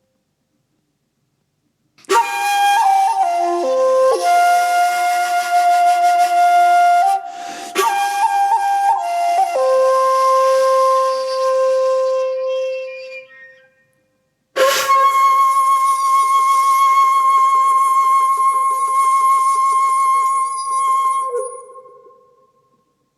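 Solo flute-like wind instrument playing two slow phrases with a pause between them. The first is a run of stepping notes; the second is a long held high note with a wavering vibrato that fades away.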